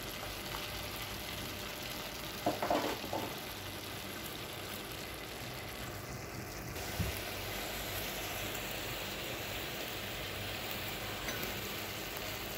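Diced chicken sizzling steadily in a stainless steel pot while a wooden spatula stirs the spices through it, with a single low knock about seven seconds in.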